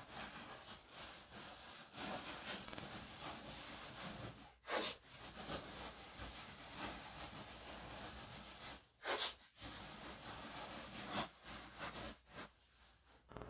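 Plastic bag crinkling and blue painter's tape being handled and pressed down while masking an opening, with two louder, brief rips of tape about 5 and 9 seconds in.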